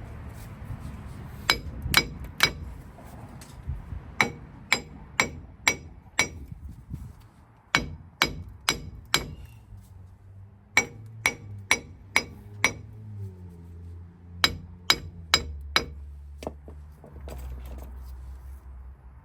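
A sledgehammer striking a seized, worn-out front wheel hub bearing assembly on a 2016 Chevy Silverado 1500 to drive it out of the knuckle. The hits are sharp and ringing, about twenty of them in runs of three to five at roughly two a second.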